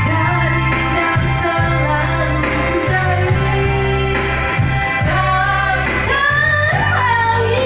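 A woman singing a melodious song into a microphone over amplified backing music with a steady bass line. Near the end her voice slides up and back down in an ornamented run.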